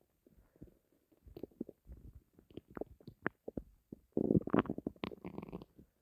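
Empty human stomach growling from hunger: a run of small gurgles and pops, then a louder drawn-out rumble starting about four seconds in that lasts around a second and a half.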